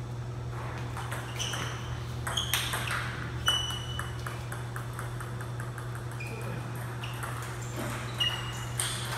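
Celluloid-type table tennis ball cracking off rubber paddles and bouncing on the table, each hit a sharp ping. About three and a half seconds in, the ball drops and bounces in a quick run of fading taps as it settles. A steady low hum runs underneath.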